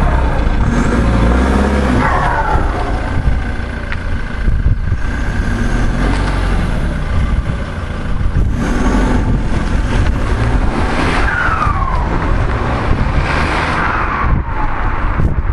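Ford Mondeo ST TDCi's 2.2 four-cylinder turbodiesel revving and pulling away, with a falling turbo chirp like a dump valve, heard three times as the revs drop. The chirp comes through an exhaust that has split just before the back box, on a decatted system.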